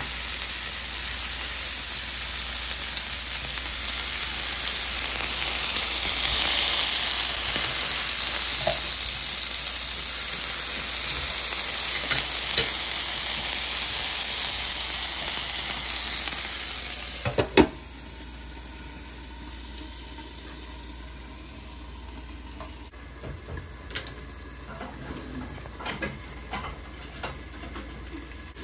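Salmon fillet and vegetables sizzling on an electric grill plate, a steady frying hiss. About two-thirds of the way in there is a sharp clack, and the sizzle drops to a much quieter hiss with scattered small crackles.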